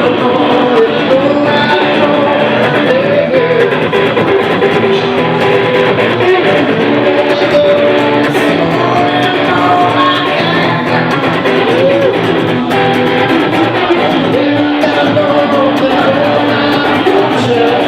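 Live blues-rock band playing an instrumental passage: an electric guitar lead with bent, wavering notes over strummed guitar and bass.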